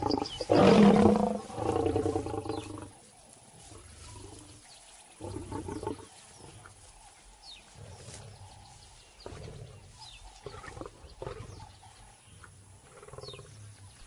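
A lion roaring and snarling loudly through the first few seconds, then quieter, shorter growls at intervals.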